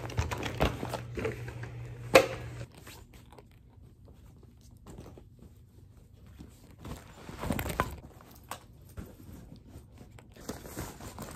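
Close handling noises from packing: items and fabric rustling, with scattered clicks and knocks as things are put into a zippered travel bag. A low steady hum runs under the first few seconds and stops.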